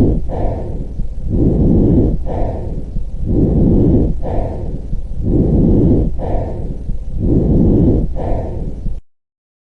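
Recorded lung sounds: breathing in and out as a rushing noise, about one full breath every two seconds, with no musical wheeze in it. The sound cuts off abruptly near the end.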